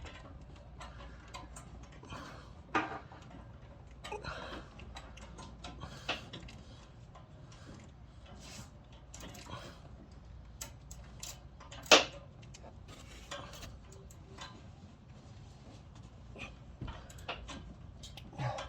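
Wrench tightening an oxygen sensor into a car's exhaust pipe: scattered light metallic clicks and ticks, with one sharp, louder clack about twelve seconds in.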